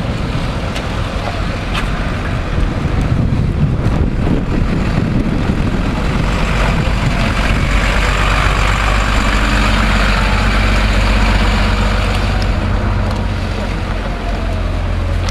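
Emergency vehicles driving slowly past: first a police car, then a Volvo fire engine whose diesel engine running close by becomes the loudest sound from about six seconds in.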